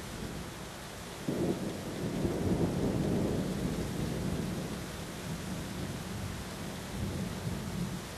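Steady rain falling, with a low thunder rumble breaking in suddenly about a second in, swelling and then rolling away over a few seconds. A weaker rumble comes near the end.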